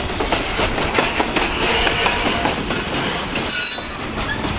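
Freight train cars rolling past, the wheels clacking and knocking over the rail. A brief high-pitched wheel squeal comes about three and a half seconds in.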